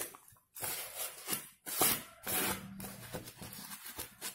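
Dried corn husks rustling in several short bursts as they are handled and picked up.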